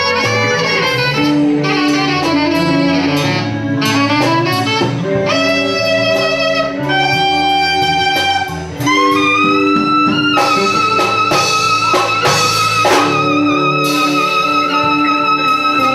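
Saxophone soloing in a live blues band, with bass notes underneath: quick runs of notes, then, about nine seconds in, a note sliding up into a long held high note.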